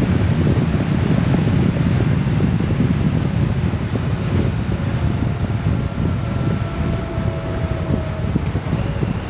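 Wind rushing and buffeting over the microphone of a Honda Gold Wing motorcycle riding at road speed, with engine and road noise beneath. A faint steady whine comes in for a few seconds after the middle.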